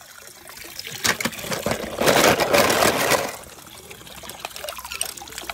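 Water splashing and sloshing as a hand rummages in a shallow paddling pool, with a louder stretch of splashing about two seconds in, then quieter splashing.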